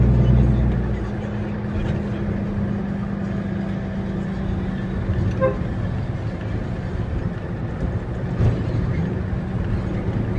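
Kenworth T800 dump truck's diesel engine heard from inside the cab while driving, louder for the first second and then running steadily. A short horn toot about halfway through.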